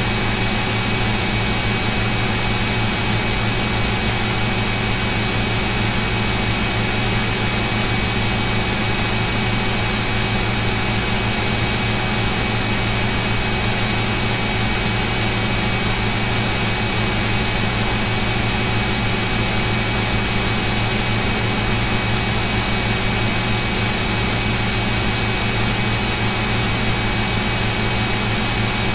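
Steady, unchanging hiss with a strong low hum and a few thin high steady tones: electrical noise picked up by the recording's microphone input.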